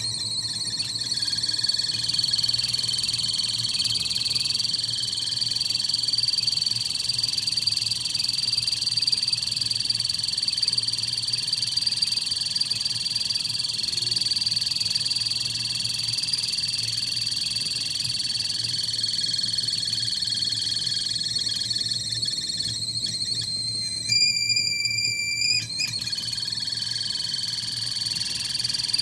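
Stainless steel stovetop whistling kettle whistling steadily at the boil: a high whistle over a rough hiss, which sounds weird because part of the kettle has broken. About 24 seconds in the whistle jumps higher and clearer for under two seconds, then drops back to its rough steady sound.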